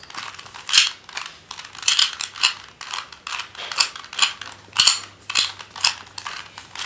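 A plastic 2x2 Rubik's cube being turned by hand, its layers clicking and clacking as they rotate. The clicks come quick and irregular, about three a second.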